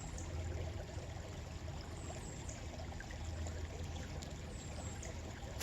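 Steady rush of running water, with a few faint high chirps.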